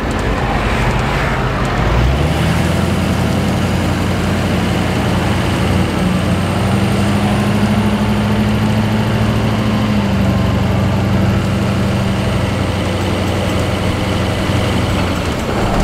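Duramax turbo-diesel engine of a Humvee, with a custom 4-inch stainless exhaust, heard from inside the cab while driving. The engine note climbs about two seconds in, then holds steady, rising slightly in the middle and easing back near the end.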